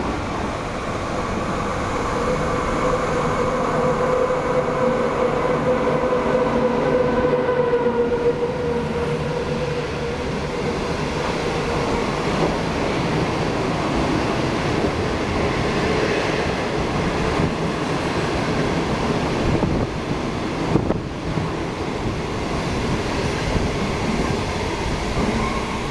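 SS8 electric locomotive and its train of 25Z passenger coaches running through the station. A steady hum comes as the locomotive goes by in the first several seconds, then the rumble of the coaches' wheels, with a few sharp clacks about twenty seconds in.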